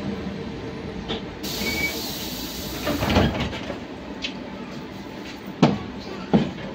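Cabin noise of a Trolza-5275.07 Optima trolleybus on the move: a steady rumble from the running gear and road, with a hiss of air starting about a second and a half in and lasting about two seconds, then two sharp knocks near the end.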